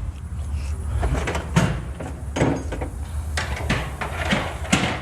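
A series of irregular knocks and clanks, about six in five seconds, as hand tools and metal parts are handled while fitting the transmission, over a low steady hum.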